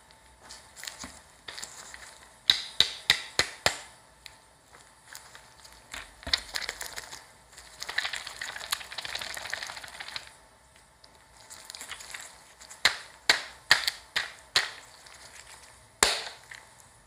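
Plastic jelly-drink cups handled in gloved hands over a steel pan: clusters of sharp clicks and taps as the cups are knocked and set down, with a few seconds of crinkly plastic rustling around the middle.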